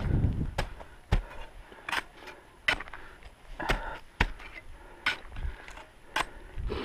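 Crampons and ice axes striking into firm snow during a winter climb: about eight sharp strikes at irregular intervals, roughly one a second.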